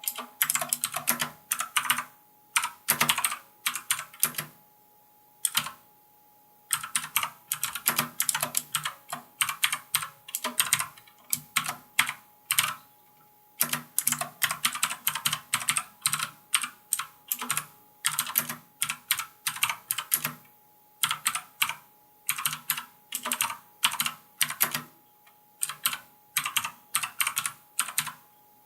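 Mechanical keyboard with Outemu Blue clicky switches being typed on: fast runs of sharp clicks, one for each keystroke, broken by a few short pauses.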